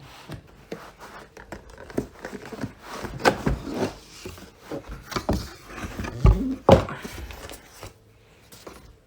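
A graphics card's box and packaging being opened and handled: irregular knocks, rubs and crinkles, with louder knocks about three seconds and six to seven seconds in.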